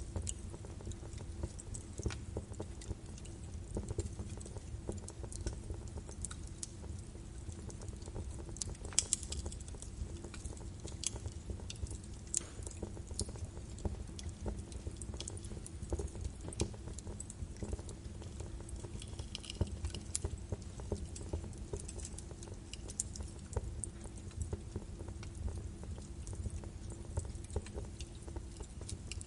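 Birch wood fire burning in a fireplace, crackling with frequent irregular sharp pops over a steady low rumble of the flames.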